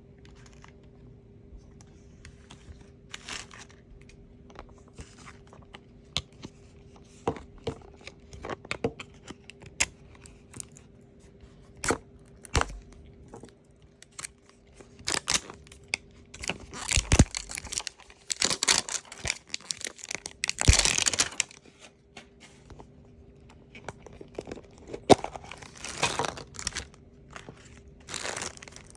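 Toy packaging being opened by hand: scattered clicks and taps, then bursts of tearing and crinkling, loudest about two-thirds of the way through and again near the end.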